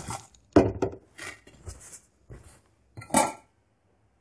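Steel cooking pot and its lid clattering and knocking as the covered pot is shaken to toss and mix the rice: a run of clanks, the loudest just after three seconds in.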